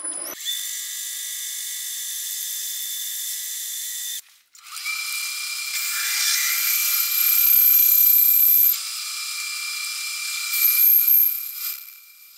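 A large twist drill boring into a cast aluminium–zinc billet on a lathe, making a steady high-pitched squeal. The cut is hard going in this zinc-bearing alloy without a smaller pilot hole. The sound cuts out briefly about four seconds in, then resumes louder.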